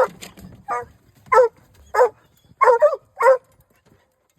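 Hunting hound barking close by: a string of about seven loud barks roughly half a second apart, two of them in quick succession near the end.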